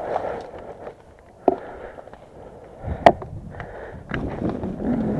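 Sharp pops of airsoft gunfire: one about a second and a half in, and the loudest about three seconds in, with a few fainter clicks around them.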